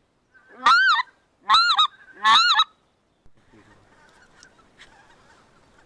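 Three loud, high-pitched goose honks in quick succession, each rising then falling in pitch, followed by faint distant sound.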